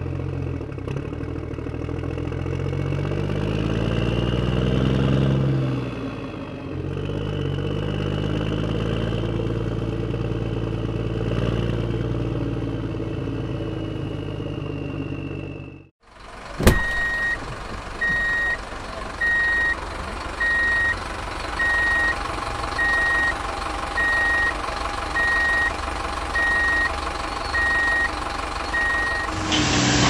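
A heavy truck's engine running, its pitch rising and then settling back. After a sudden cut, a reversing alarm beeps about once a second, around a dozen times, over a steady engine hum.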